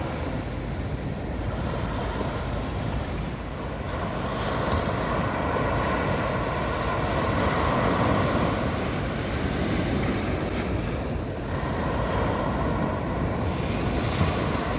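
Sea surf washing onto the beach, a steady rush that swells to a peak about halfway through and then eases.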